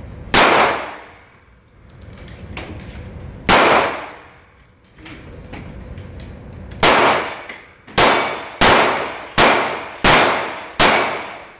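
Eight pistol shots in an indoor range, each with a long echo: two single shots about three seconds apart, a third, then five in quicker succession, a little under a second apart.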